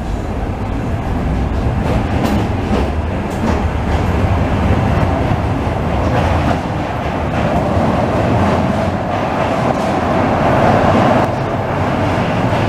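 Carmelit underground funicular car pulling out of the station and running away down the sloping tunnel: a steady rumble of wheels on rail. A humming note swells toward the end and then stops abruptly.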